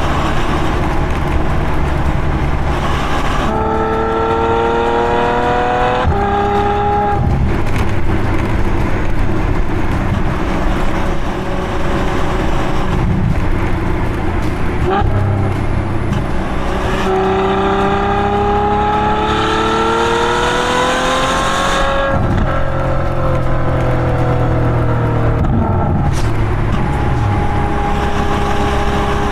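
Ferrari F12 Berlinetta's 6.3-litre V12 exhaust running under way, heard from the rear bumper. The engine note climbs in pitch under acceleration about four seconds in and again for about five seconds past the middle, then falls away as the throttle comes off, with steadier cruising between.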